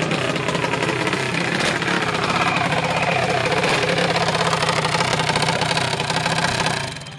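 Junior dragster's small single-cylinder engine idling close by, a fast, even chatter, until it cuts off just before the end.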